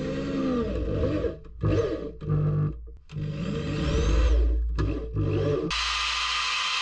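A handheld power drill with a grinding bit worked against the inner bore of a steel motorcycle brake disc in short stop-start runs, its pitch rising and falling as it loads and frees up. Near the end an angle grinder takes over with a sudden harsh, hissing grind on the disc.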